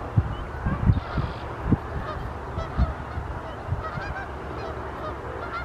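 A large flock of geese honking, many overlapping calls at once, with a few low thumps in the first three seconds.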